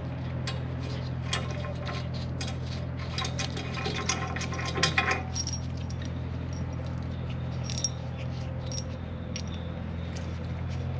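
Light metallic clicks and clinks of a steel bolt, nut and socket being handled and threaded by hand, busiest in the first five seconds and then only a few, over a steady low hum.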